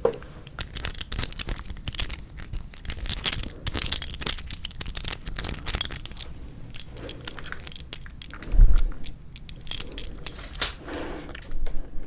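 Close-miked crinkling and clicking of plastic packaging handled around 4D gummy jellies, a dense stream of small sharp crackles, with one dull thump about eight and a half seconds in.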